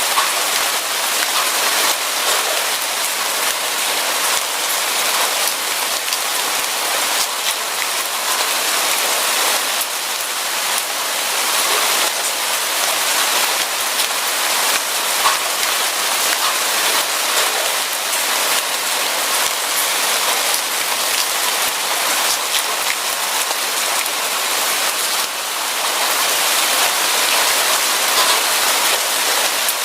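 Steady rain: a dense, even hiss of drops falling on a surface, with individual drop hits ticking through it.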